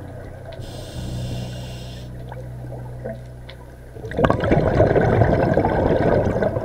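Scuba regulator breathing underwater: a short hissing inhale about a second in, then a loud rush of exhaled bubbles from about four seconds in.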